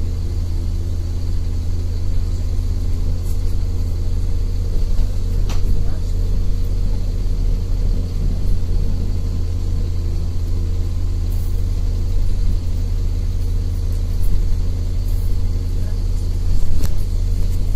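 City bus engine and drivetrain running steadily, heard from inside the passenger cabin as a loud low drone with a steady hum. A sharp knock sounds about five seconds in, and another near the end.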